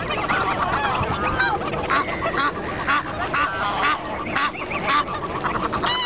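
A crowd of waterfowl calling, with many overlapping honks and quacks. From about two seconds in, a run of loud, harsh quacks comes roughly twice a second.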